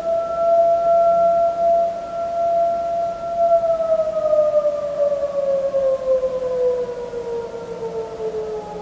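A single held siren-like tone. It stays steady for about three and a half seconds, then slowly winds down in pitch.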